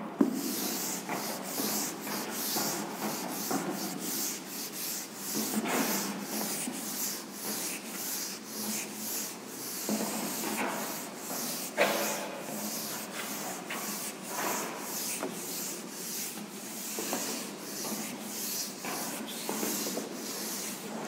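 Chalkboard duster being rubbed back and forth across a chalkboard, erasing chalk writing, in quick regular strokes about two a second, with an occasional sharper knock.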